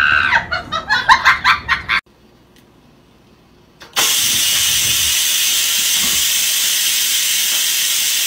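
Electric pressure rice cooker venting steam through its release valve: a loud, steady hiss that starts suddenly and keeps going.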